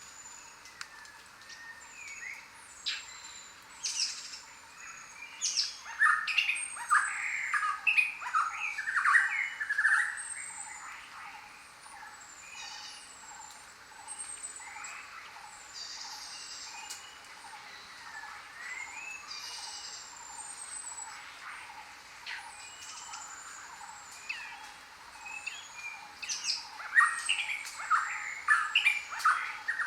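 Several jungle birds calling together: short high whistles that fall in pitch, repeated again and again. Louder bouts of rapid chattering calls come about a third of the way in and again near the end.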